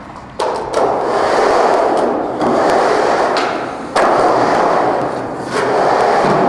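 Skateboard wheels rolling on the curved wall of a large pipe: a loud rolling noise that jumps up suddenly four times as the board hits and carves the wall.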